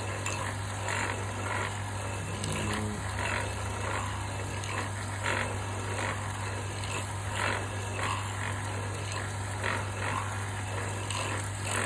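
Wood lathe running with a steady hum while its spinning cutter cleans out a rectangular knife-tang socket in dense white mallee burl. The blank is worked backwards and forwards against the cutter, giving repeated scraping cuts, roughly one a second.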